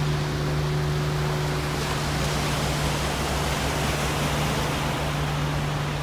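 Steady rush of sea surf and wind, with a low steady hum underneath.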